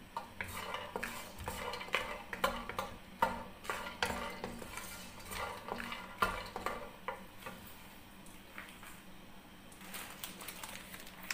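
Cashews and almonds being stirred with a wooden spoon in a dry nonstick wok as they lightly roast: irregular scraping and clicking of spoon and nuts against the pan. The stirring eases off about two-thirds of the way through, with a few last clicks near the end.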